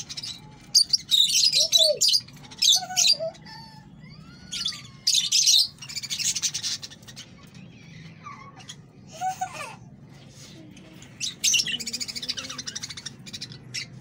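Caged lovebirds chattering in repeated shrill bursts of high chirps and squawks.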